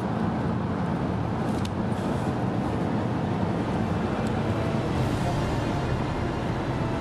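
Steady road and engine noise heard from inside a car driving through a road tunnel.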